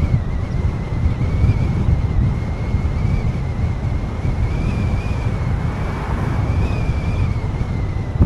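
Moving car's road and wind noise: a steady low rumble with wind buffeting the microphone, and a thin high whine that wavers slightly in pitch.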